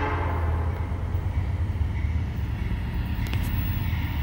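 Steady low rumble of an approaching diesel freight locomotive, heard between blasts of its horn, with a few short clicks near the end.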